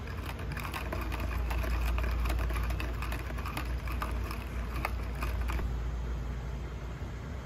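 Typing on a computer keyboard: quick, irregular clicks that stop about three quarters of the way through, over a steady low hum.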